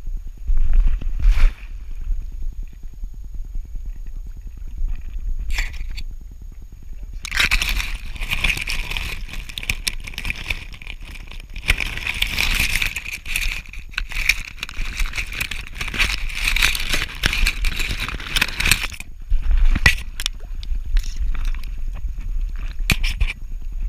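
Shrub branches and stiff grass scraping and rustling against a GoPro housing strapped to a walking dog's back, heaviest for about twelve seconds in the middle. A constant low rumble comes from the camera jostling with the dog's movement.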